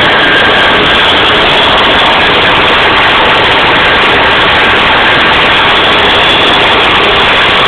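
OT-64 SKOT armoured personnel carrier's air-cooled Tatra V8 diesel engine running under way over rough ground, heard from on top of the hull: a very loud, steady engine noise with no letup, terribly loud and near the limit of the phone's microphone.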